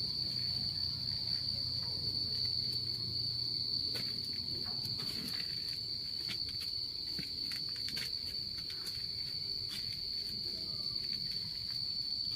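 Crickets trilling in one steady, unbroken high-pitched drone, with a few faint clicks and rustles over it.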